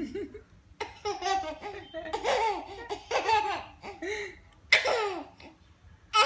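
A baby laughing in four or five short, bubbly bursts with brief pauses between them.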